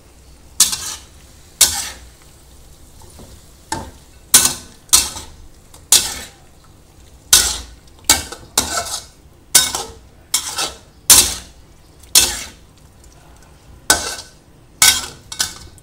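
A metal spatula scraping and clanking against a metal wok as chicken and vegetables are stirred through a thick sauce, in about seventeen uneven strokes, roughly one a second.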